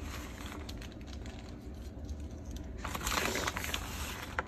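Plastic bag of shredded cheese crinkling as it is handled, with a louder stretch of rustling about three seconds in and a short click near the end.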